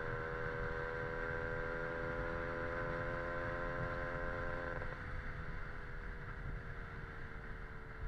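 Lambretta scooter's Casa Performance SSR265 two-stroke engine at steady cruising revs, over a low rumble of wind on the microphone. About five seconds in the throttle is eased off: the engine note drops in level and then falls slowly in pitch.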